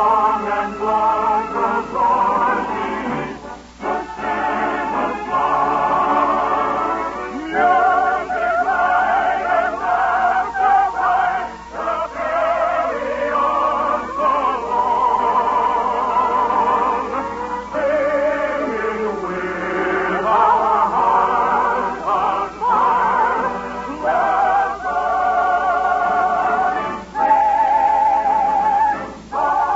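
Operetta singing with vibrato over an orchestra, held notes broken by short pauses between phrases. The recording is an early-1950s radio broadcast, with its upper frequencies cut off.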